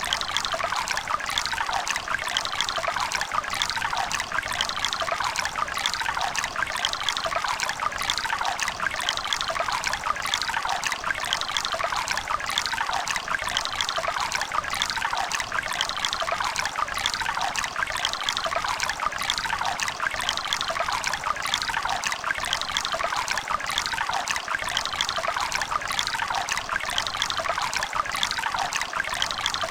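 River water running and babbling over stones: a steady bright splashing and trickling, with little low rumble.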